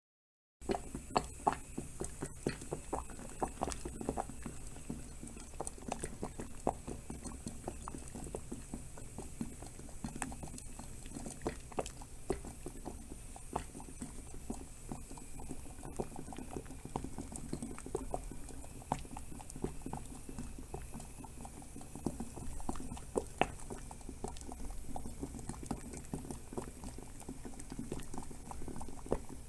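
Water boiling with a bag in it: steady bubbling with many irregular sharp pops, starting abruptly about half a second in.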